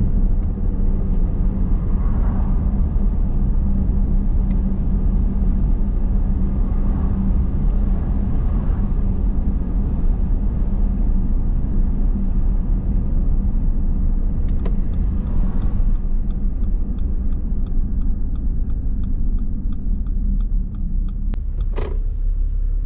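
Car driving, heard from inside the cabin: a steady low rumble of engine and tyre noise. A light, regular ticking joins in over the last several seconds.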